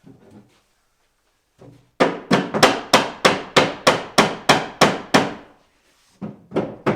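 Hammer tapping a wooden panel of a pine wardrobe up into place: a quick, even run of about eleven sharp knocks, roughly three a second, then a short pause and a few more knocks near the end.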